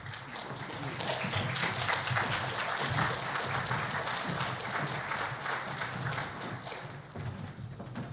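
Audience applauding, a dense patter of many hands clapping that builds over the first second or so and eases off near the end.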